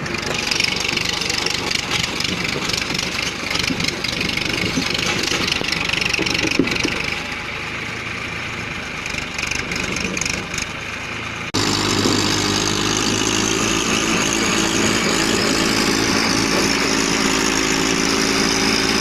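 Massey Ferguson 1035 tractor's three-cylinder diesel engine running steadily. About two-thirds of the way through the sound changes abruptly to a cleaner, even engine note.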